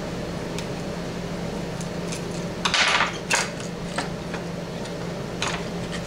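Handling noise from taking apart a plastic battery-charger case: a few sharp clicks and, about three seconds in, a short scraping rattle as the circuit board is worked loose. A steady low hum lies under it.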